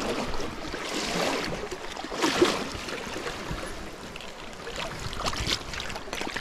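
Water sloshing and splashing around an angler wading in a shallow river's current while holding a landing net in the water, with a few louder splashes, the loudest a little over two seconds in.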